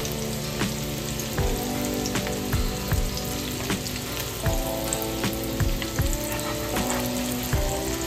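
Chicken shami kebabs sizzling as they shallow-fry in hot oil in a frying pan, with about a dozen sharp clicks of metal tongs against the pan as the patties are turned over one by one.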